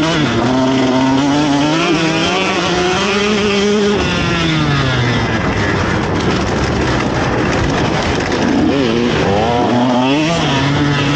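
KTM SX150 single-cylinder two-stroke motocross engine under hard throttle, its pitch wavering and climbing. About four seconds in the note falls away and a rough rushing noise takes over. Near the end the revs climb again.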